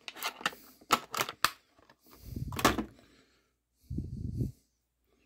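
Stiff clear plastic blister packaging crackling and snapping as a screwdriver is pulled free of it. Several sharp clicks come in the first second and a half, a crackle follows, and there is a duller handling rustle near the end.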